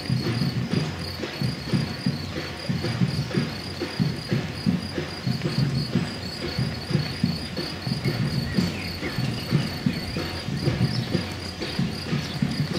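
Footsteps of many runners on an asphalt path, a continuous irregular patter of overlapping footfalls. A steady, evenly pulsing high chirp runs underneath throughout.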